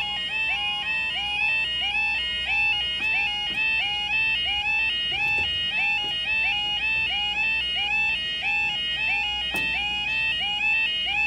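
Level crossing warning alarm sounding as the road barriers lower: a loud repeating two-tone wail, about two cycles a second, warning of an approaching train.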